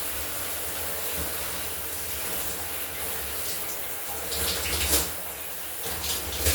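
Shower water running steadily, with a low hum under it. A few short, louder sounds break in about four to five seconds in and again near the end.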